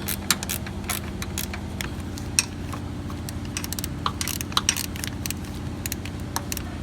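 Irregular metallic clicks and clinks of a hand tool tightening a 10 mm bolt on the condenser fan's mounting, over a steady low hum.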